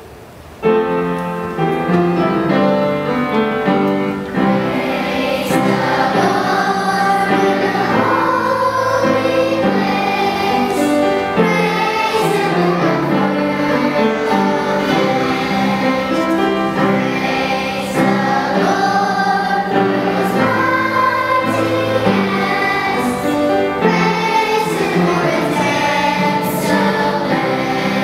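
Children's choir singing a song with instrumental accompaniment, starting suddenly about half a second in.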